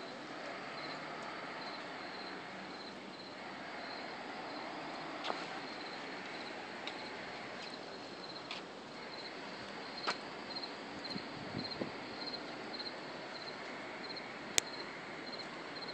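A cricket chirping in a steady rhythm, about twice a second, over a constant background hiss. A few sharp clicks cut in, the loudest one near the end.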